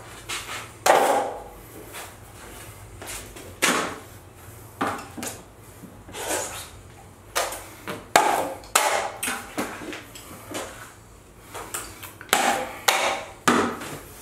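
Metal drywall taping knife scraping joint compound off a mud pan and along the wall: a run of irregular short scrapes and clacks, one or two a second.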